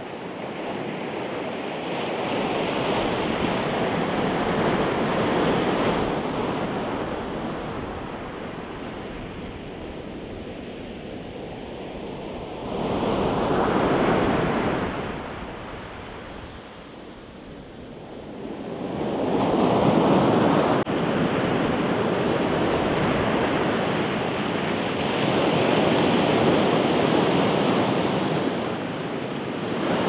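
Pacific Ocean surf breaking and washing up the beach in repeated swells, the rush rising and falling as each wave comes in; stronger breaks come a little before halfway and again about two-thirds through.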